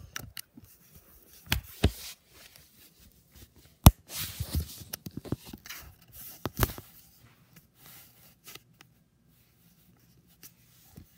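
Handling noise from a camera being picked up, moved about and set down: scattered knocks, scrapes and rustling. A sharp knock about four seconds in is the loudest. The sounds thin out after about seven seconds, once the camera is resting.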